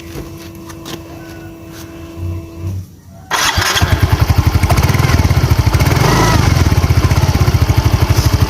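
A motorbike engine starts abruptly about three seconds in and keeps running with a fast, even pulse. The bike is fitted with a homemade zinc-sheet device meant to give a turbo-like 'nging' whine. Before it starts there are only a few quiet knocks and a steady tone.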